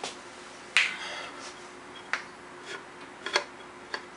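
Light metal clicks and taps as a connecting rod's big end is guided onto the crankshaft journal of a KA24DE engine, the loudest about a second in with a short ring, followed by four or five smaller clicks.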